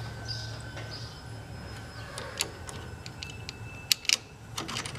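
Light metallic clicks and clinks from a Matco aircraft brake caliper and its bolts and spacers being handled and fitted on the landing-gear axle: a few sharp ticks, with a pair close together about four seconds in. A low steady hum runs underneath.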